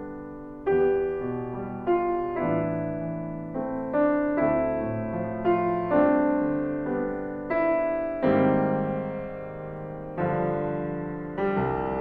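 Solo piano playing a slow, gentle piece: chords and melody notes struck about once a second and left to ring and fade.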